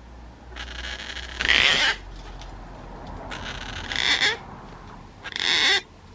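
Juvenile Gang-gang cockatoos giving their rasping food-begging calls, three drawn-out raspy calls with the loudest about a second and a half in.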